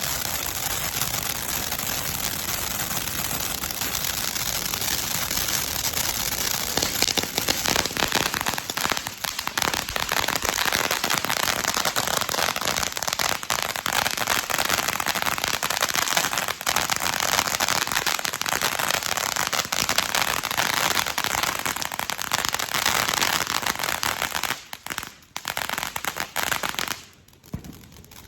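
Consumer firework going off as a long, dense run of rapid crackling pops over a hiss. It gets louder a few seconds in, then falters and dies out a few seconds before the end.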